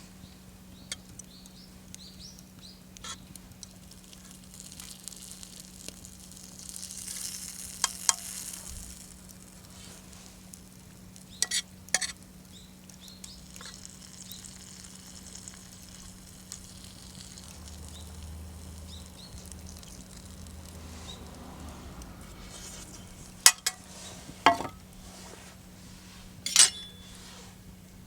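Meat and garlic scapes sizzling in a hot iron frying pan, the hiss swelling and easing. Several sharp metal clinks of tongs against the pan are the loudest sounds.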